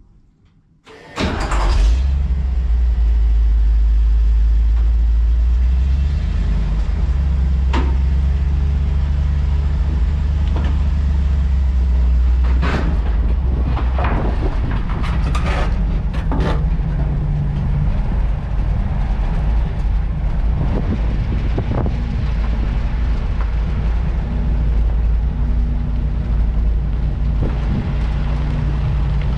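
Loaded grain truck's engine starting about a second in and then running steadily with a low rumble as the truck drives, with a few brief rattles.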